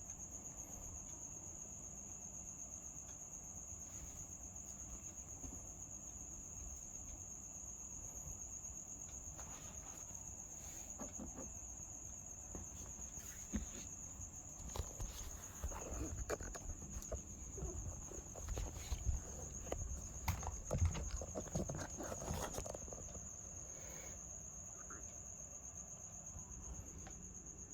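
A steady high-pitched trill holds throughout, with scattered soft knocks and rustling in the middle stretch.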